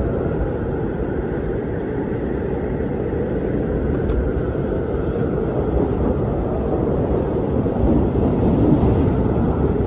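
Howling wind: a steady, deep rushing noise that swells a little near the end.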